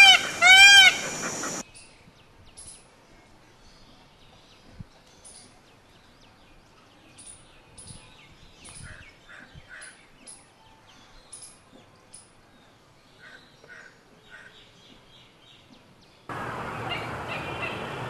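Indian peafowl (peacock) giving a quick series of loud calls, about two a second, each rising and then falling in pitch, stopping about a second and a half in. Faint high chirps of small birds follow, and near the end a steady noise sets in abruptly.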